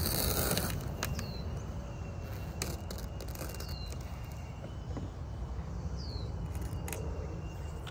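A windshield-removal knife rasps through the urethane at the start. Then the cracked windshield glass gives about five sharp cracks as the knife is pulled, the sign of pulling at the wrong angle. A bird calls three times with short falling chirps.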